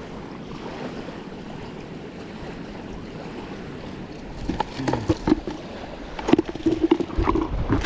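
Water washing at the shoreline with wind, steady for the first half; from about halfway in, a cluster of sharp clicks and knocks.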